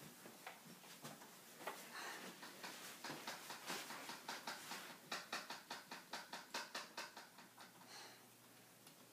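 A quick run of faint light taps, about four a second, starting around three seconds in and stopping shortly before the end.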